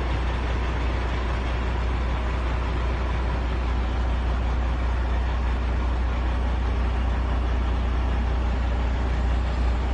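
Peterbilt truck's diesel engine idling steadily, a low rumble heard from inside the cab.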